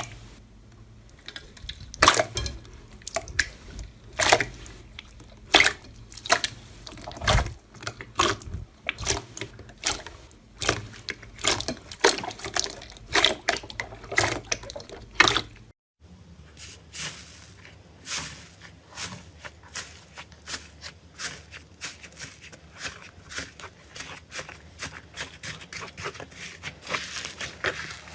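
Slime being squeezed and worked by hand, making irregular wet pops and clicks. It breaks off for a moment about halfway, then comes back as a quicker run of smaller sticky clicks.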